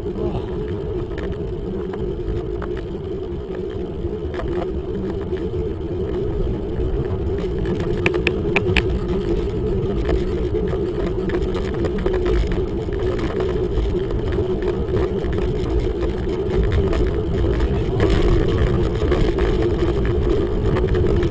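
Steady rumble of wind and road noise on a moving camera, with a few sharp clicks about eight to nine seconds in.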